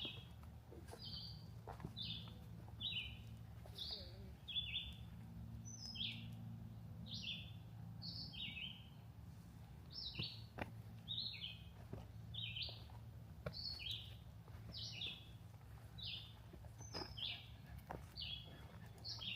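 A bird repeating a short, high, two-part falling call about once a second, with a few faint knocks.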